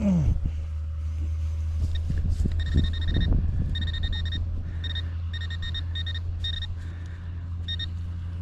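Metal detecting pinpointer beeping on and off in short stretches at one steady high pitch as it is swept in and out of the hole over a buried target, with a few low knocks of digging and a steady low rumble underneath.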